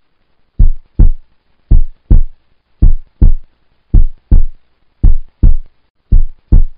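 Heartbeat sound effect ticking off a quiz countdown timer: deep double thumps, lub-dub, about one pair a second, six pairs in all.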